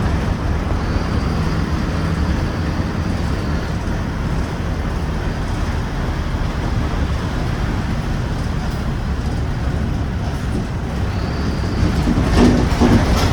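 Mercedes-Benz OF-1721 bus diesel engine running steadily while the bus is driven, with road noise. A brief louder clatter comes near the end.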